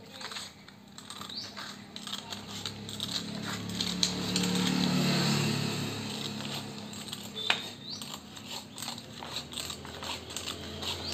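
Scissors cutting a long strip of motor slot insulation paper along a marked line: repeated crisp snips and paper rustle. A low hum swells in the background for a few seconds in the middle, and a single sharp click comes about two-thirds through.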